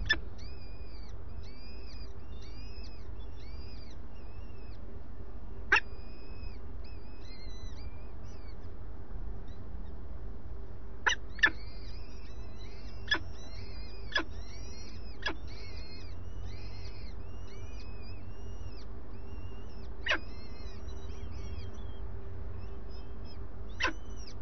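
Peregrine falcon chicks being fed, giving runs of short, thin, high begging calls one after another. Sharp clicks sound here and there, about nine in all, over a faint steady hum and low rumble.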